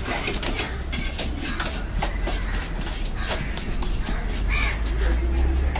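A knife scraping scales off a fish on a wooden chopping block: a run of short, sharp scratchy strokes. Crows caw over it, and a low rumble comes up in the second half.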